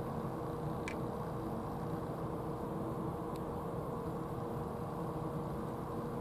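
Steady low rumbling background noise with a faint constant hum, and two brief high chirps, about a second and three and a half seconds in.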